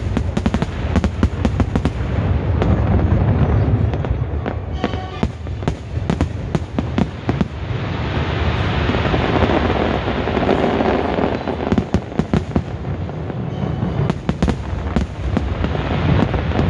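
Aerial fireworks bursting in quick succession, many sharp bangs over a low rumble. About halfway through, a denser, steadier crackling takes over, and the sharp bangs return near the end.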